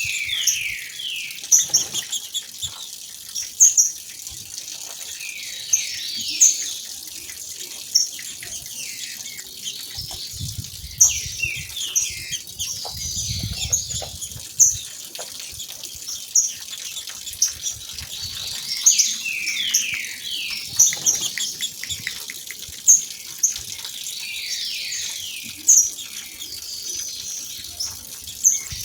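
Female green-winged saltators (trinca-ferro) calling: repeated clusters of short falling notes and sharp high chips, over the steady rush of a waterfall. Occasional low thumps come between the calls.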